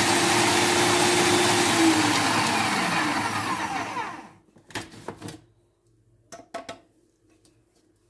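Electric food processor grinding dried red chili peppers, its motor running steadily, then winding down with a falling pitch about three seconds in as it is switched off. A few clicks and knocks follow as the bowl's lid is handled.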